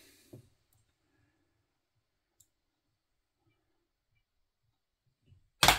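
Near silence with a couple of faint ticks, then one sharp clack near the end: the metal baking tray knocking on the glass hob as it is handled.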